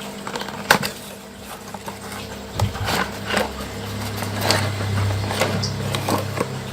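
Cardboard packaging of an aquarium heater being opened and handled: scattered taps, clicks and rustles, with a low rumble in the middle and a steady low hum underneath.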